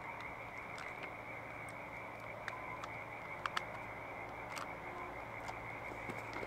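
Frogs calling in a continuous chorus: a steady, finely pulsed trill at one high pitch, with a faint low hum underneath and a few short clicks scattered through.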